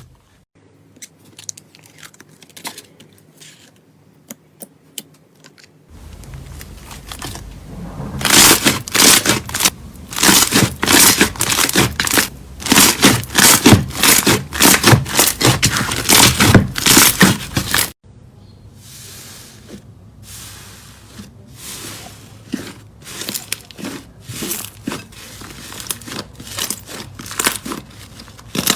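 Slime being squeezed and pressed: sticky crackling and popping. There are only faint clicks at first, then about six seconds in a dense run of loud crackles sets in. It changes suddenly to softer, more spaced crackling near two-thirds of the way through.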